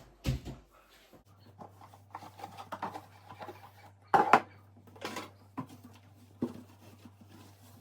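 Dishes and kitchenware clinking and knocking as dried washing-up is handled and put away, with one louder clatter about four seconds in. A low steady hum runs underneath.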